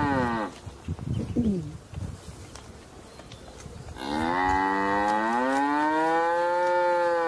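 Cattle mooing. One long moo ends just after the start, a short falling call comes about a second in, and a second long moo starts about four seconds in, rises in pitch, then holds and cuts off at the end.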